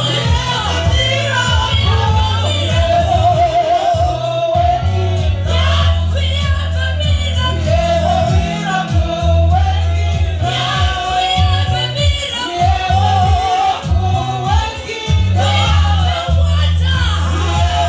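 Gospel worship song: voices singing a wavering melody over a band with a heavy, sustained bass line.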